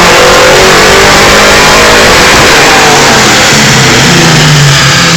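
2003 SVT Cobra's supercharged 4.6-litre V8 under full load on a chassis dyno, very loud, its revs high at the top of the pull. About three seconds in, the revs drop away and the engine settles to a lower, steady note.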